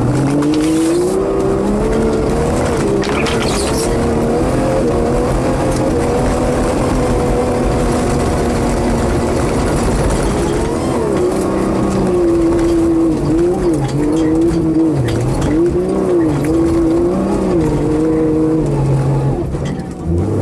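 A vehicle engine running hard and continuously. Its pitch climbs, holds and repeatedly dips and rises again as the throttle is worked, with the wavering strongest in the second half.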